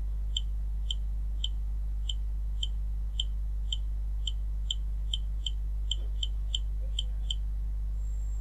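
A series of about sixteen short, high electronic beeps, roughly two a second and coming closer together near the end, over a steady low hum.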